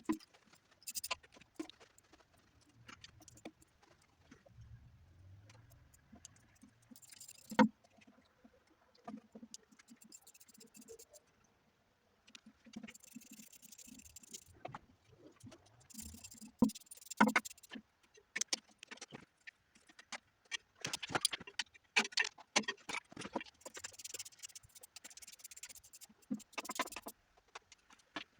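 Hand tools and metal engine parts clinking and knocking during an engine teardown, with scattered small clicks and two sharper knocks, about seven and a half and seventeen seconds in.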